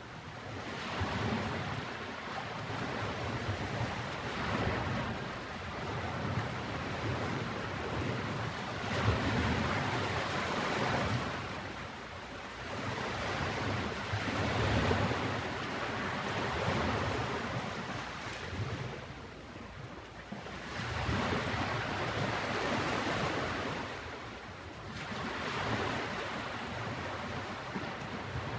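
Ocean waves breaking on a beach, the surf swelling and falling away every few seconds in a steady wash of noise.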